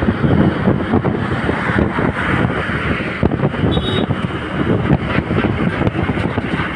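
Wind buffeting the microphone of a riding motorcycle at highway speed, a loud, uneven rumble, with road and traffic noise underneath.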